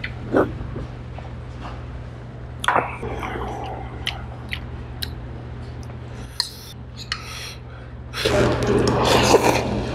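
Metal utensils clicking against a steel stew pot and bowls over a steady low hum. About eight seconds in, a louder stretch of noodles being slurped.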